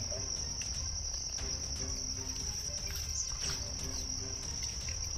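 A steady high-pitched insect drone that does not let up, over a faint low rumble.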